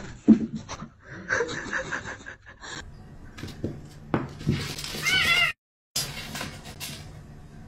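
Cat meowing in several short calls, with a sharp knock just after the start and some noisy rustling. The sound drops out for a moment about five and a half seconds in.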